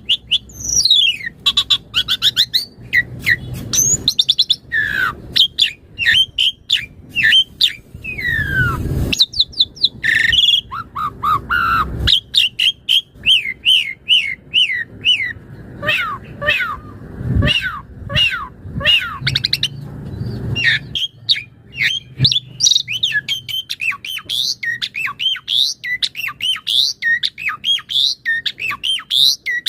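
Javan pied starling (jalak suren) singing in full voice: a long, rapid, varied run of chirps, gliding whistles and harsh squawking notes, part of it songs it has copied from other birds.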